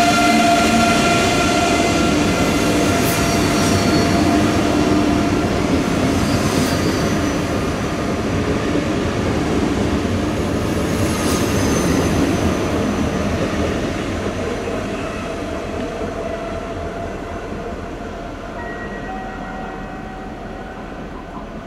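NS ICE 3M high-speed electric train pulling out, its traction drive whining in several steady tones over the rolling noise of the wheels. The tones fade after the first few seconds, and the rolling noise slowly grows fainter as the train moves away.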